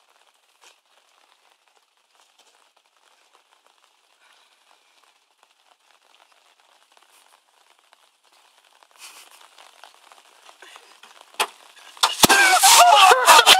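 Quiet for most of the stretch, then near the end a sharp click as the pickup's tailgate is released, followed at once by a loud rush of water pouring out of the tarp-lined truck bed onto a man, who cries out.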